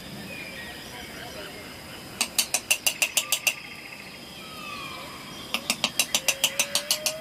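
Two runs of rapid mechanical clicking, about eight sharp clicks a second, each run lasting a second or more, like a ratchet.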